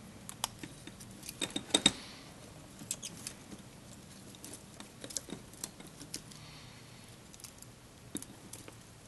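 Small plastic clicks, snaps and scratching from hands prying and working the toy quadcopter's plastic board carrier loose, with a louder cluster of snaps about two seconds in.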